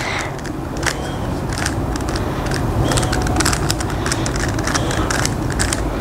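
A Rubik's cube being turned by hand, its layers giving irregular quick clicks, over a steady low rumble.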